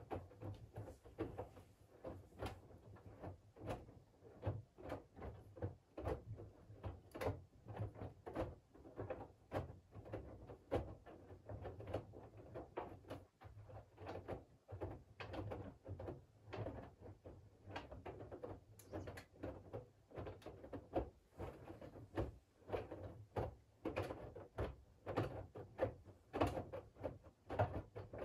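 Siemens iQ700 WG56B2090 front-loading washing machine in its wash cycle: the drum turns and wet laundry tumbles with a continual run of irregular knocks and splashes over a steady low hum.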